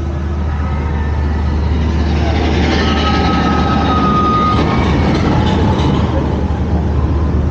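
Steady low rumble of the Molly Brown paddle steamer's machinery while the boat is underway. A louder rattling, rushing sound swells about two seconds in and fades after about six seconds, with a thin steady tone held through part of it.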